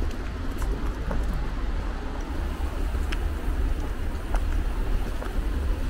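Steady low rumble of city street noise, with a few faint clicks.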